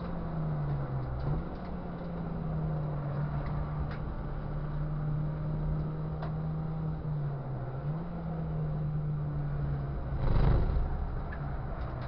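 Ford Fiesta Cup race car's engine heard from inside the car at racing speed, its note steady but dipping and recovering twice. About ten seconds in there is a loud short rumble, and after it the engine note settles lower.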